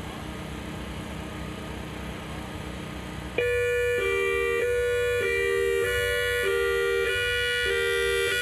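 Whelen WS-3000 electronic siren starting up suddenly about three seconds in with a loud hi-lo signal, alternating between two pitches with each tone held a little over half a second. Before that, only a low steady background.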